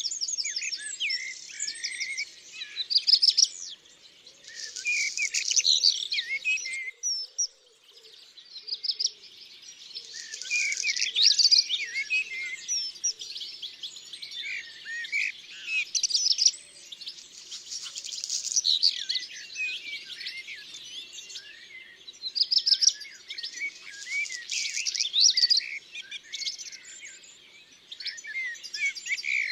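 Small songbirds singing and chirping, overlapping warbled phrases and fast trills that swell in bursts every two to three seconds.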